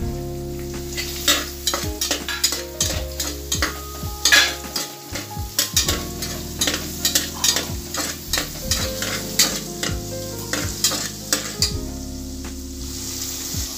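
Chopped onions sizzling as they fry in ghee and oil in a pressure cooker, with a steel spatula scraping and clinking against the pot in quick, irregular strokes as they are stirred.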